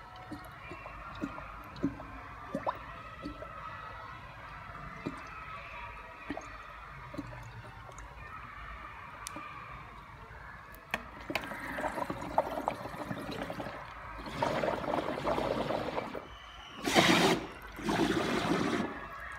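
Butane gas can discharging under soapy water in a plastic bucket, bubbling the gas through to build up foam. The first half holds small splashes and bubbling. From about halfway there are several longer bursts of gas gushing and gurgling through the water, the loudest about three-quarters of the way in.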